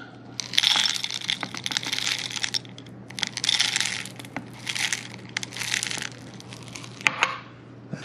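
Whole coffee beans poured in several bursts from a small bowl into a Proctor Silex blade grinder's stainless steel chamber, clattering against the metal and blades as it fills to the top.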